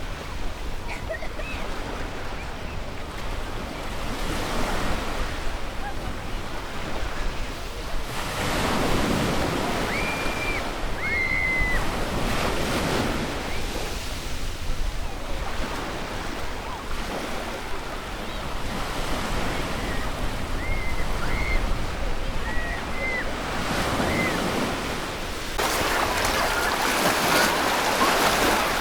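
Ocean surf on a beach, waves breaking and washing in swells that rise and fall, with a louder wave crashing in near the end. A few short high chirps sound over the surf.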